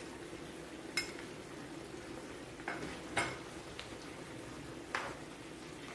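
Spatula stirring a pan of simmering vegetable gravy, with about five light knocks and scrapes against the frying pan over a steady bubbling hiss.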